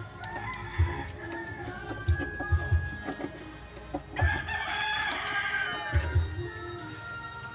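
A rooster crowing, the longest and loudest crow about four seconds in, with a few dull low knocks scattered through.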